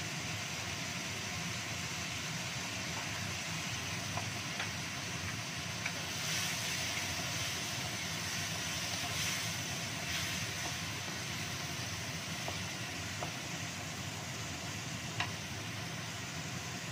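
Steady hiss of a wok of chilli sauce with quail eggs simmering over a gas burner. A wooden spatula stirs it in the middle, with a few light knocks against the pan.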